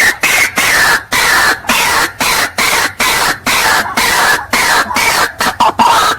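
White-breasted waterhen calling: loud, harsh, croaking notes repeated at about two a second, quickening again near the end.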